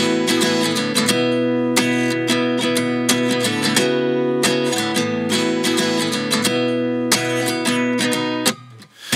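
Background music led by a strummed acoustic guitar. It breaks off briefly just before the end, then comes back.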